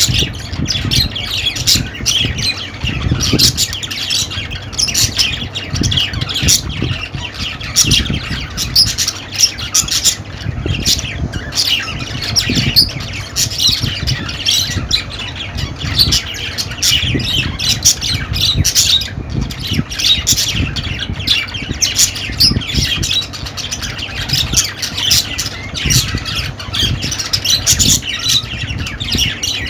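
Budgies (budgerigars) chattering and squawking without a break, many short, quick chirps overlapping one another.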